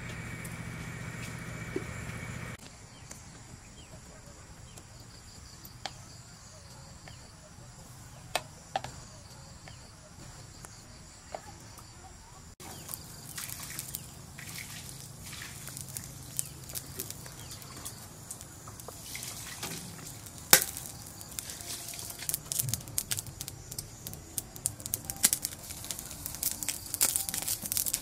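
Charcoal fire in a clay stove crackling and popping under squids grilling on a wire rack, the sharp crackles getting denser and louder toward the end, with one loud snap about 20 seconds in. A low steady hum runs for the first couple of seconds.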